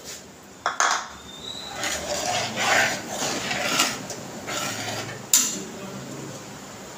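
Steel ladle stirring and scraping through a wet, thick chutney in a steel kadhai, with a few sharp metal clinks.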